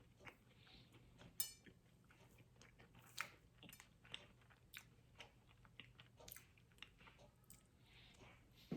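Faint chewing and mouth sounds of a person eating a chocolate brownie with nuts, with small irregular clicks and a sharper click about a second and a half in.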